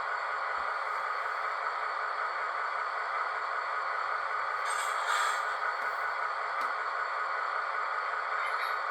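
Diesel locomotive engine sound from an HO scale V/Line N class model's DCC sound decoder, running steadily through the model's small onboard speaker, thin with little bass. A brief hiss comes about five seconds in.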